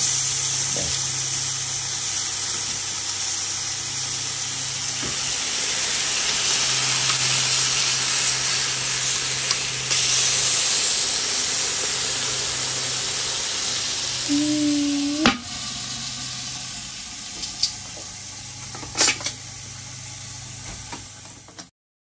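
Marinated meat sizzling on a hot barbecue grill plate, a steady hiss, with a few sharp metallic clicks from the tongs in the second half. The sound cuts off abruptly just before the end.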